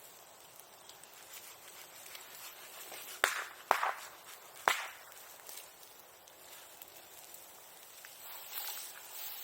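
Bonfire burning with a steady low crackle, broken by three sharp pops a little under a second apart about three seconds in.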